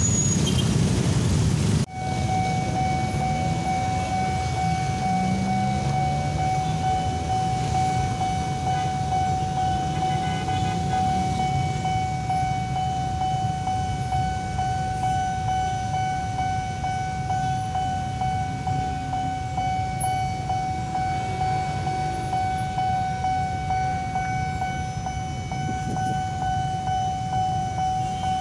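Level-crossing warning alarm of a Nippon Signal crossing, sounding one steady high tone that starts about two seconds in. Under it runs a continuous low rumble of a passing electric commuter train.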